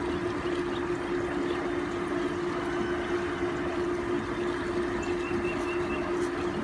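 Steady hum of a running motor or pump over an even wash of noise, with a short high chirping about five seconds in.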